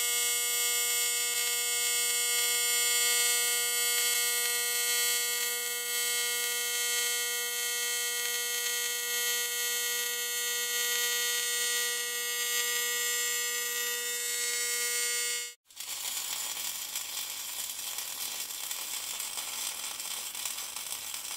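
AC TIG welding arc on 1/8-inch aluminum, a steady buzzing tone with a shrill upper edge. About fifteen seconds in it cuts off suddenly and a stick (MMA) welding arc on mild steel takes over, an uneven crackling hiss.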